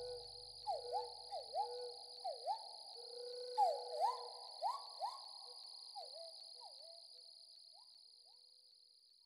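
Nature ambience: a steady high insect drone under an animal's repeated short calls, about fifteen of them, each swooping down and back up in pitch. The calls thin out after about six seconds, and the whole fades away near the end.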